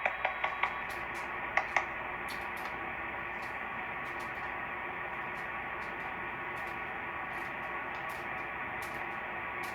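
Steady shortwave static hiss from a portable SDR receiver tuned to the 11-meter band on lower sideband, heard through a speaker, with no station coming through. A few short clicks sound in the first two seconds.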